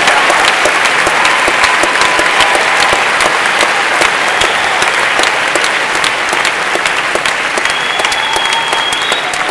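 Large indoor audience applauding, many hands clapping steadily after a guest speaker is introduced, easing off slightly near the end.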